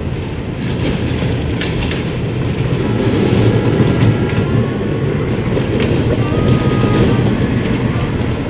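Coin-operated kiddie ride train running round its small track: a steady low rumble of the motor and wheels, with scattered clicks from the wheels on the rails.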